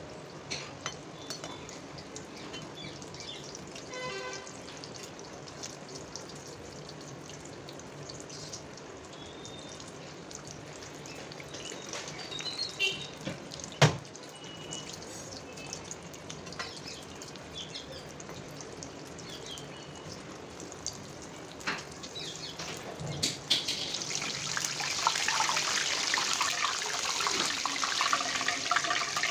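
Samosas deep-frying in hot oil in a metal kadai, a steady sizzle and crackle, with a steel slotted spoon now and then clinking against the pan and one sharp knock about halfway through. The sizzling grows clearly louder and brighter over the last few seconds.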